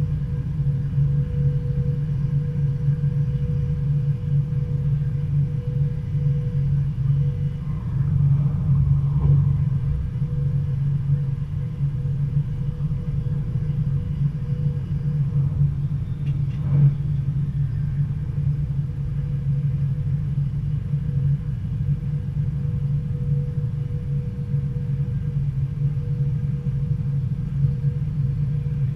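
Arriva Stadler GTW diesel-electric multiple unit running along the track: a steady low drone with a faint steady hum above it, and one short knock about seventeen seconds in.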